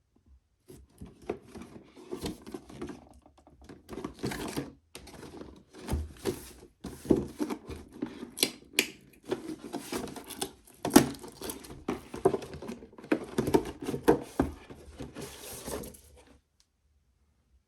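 Ski goggle packaging being handled and unpacked: an irregular run of rustling, crinkling and tearing with sharp clicks and taps, stopping about a second and a half before the end.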